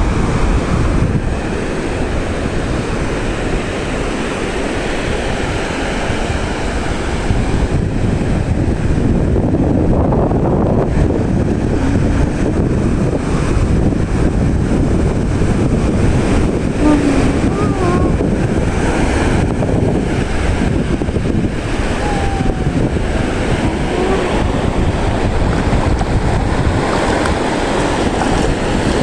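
Sea surf washing onto a beach, a steady rush of waves, with wind buffeting the microphone.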